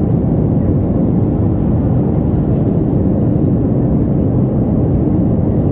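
Steady, even cabin noise of a Boeing 737 MAX 8 in flight, from its CFM LEAP-1B engines and the air rushing past, heard from a window seat as a deep, constant rumble.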